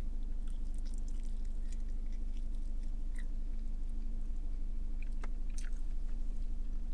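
Close-up biting and chewing of a sauced chicken wing, with small mouth clicks here and there, over a steady low hum.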